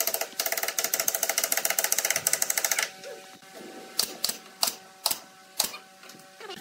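A fast mechanical clicking rattle for about the first three seconds, then a pneumatic nail gun firing five times, sharp shots about half a second apart, as nails are driven into pine pallet slats.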